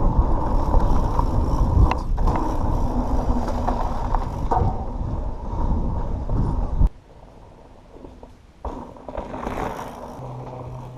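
Pivot Switchblade 27.5+ mountain bike ridden on a dirt trail: a loud rumble of tyres and rattling parts with wind on the microphone and a few sharp knocks. It cuts off suddenly about seven seconds in, leaving a much quieter stretch.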